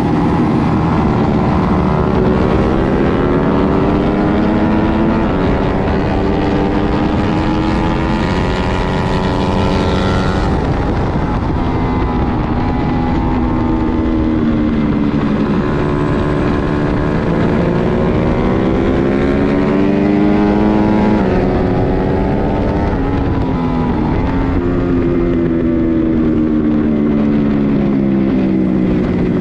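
Twin-cylinder superbike race engine running hard, its revs climbing and dropping several times as it accelerates and changes gear, over loud wind rush.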